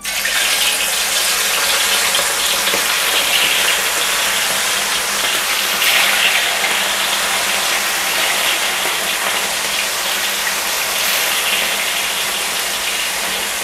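Chicken pieces deep-frying in hot oil in an aluminium wok: a loud, steady sizzle that starts suddenly as the first pieces go in.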